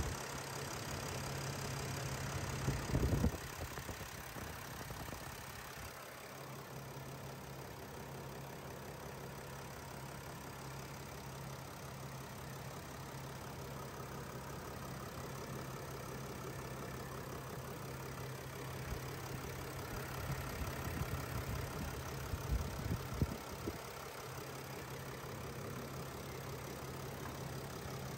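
The 3.0L V6 turbodiesel engine of a 2020 Mercedes-Benz Sprinter idling steadily with its hood open, with a few dull bumps about three seconds in and again about two-thirds of the way through.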